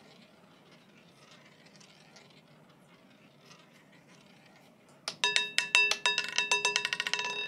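Roulette ball running faintly around the spinning wheel. About five seconds in, it drops from the track into the pocket ring with a sudden loud clatter of rapid clicks and ringing as it bounces over the frets.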